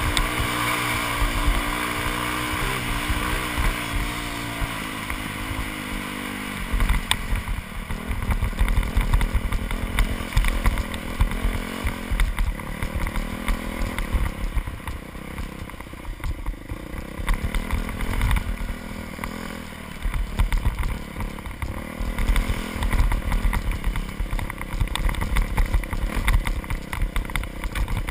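2001 Yamaha YZ426F four-stroke single-cylinder dirt bike engine running while ridden, heard from a helmet-mounted camera. The engine note holds steady for the first six seconds or so, then turns choppy and uneven with irregular low thumps as the bike rides on.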